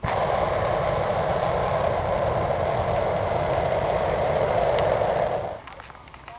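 Hot air balloon's propane burner firing in one long blast of about five and a half seconds: a steady, loud rush that starts abruptly and cuts off sharply.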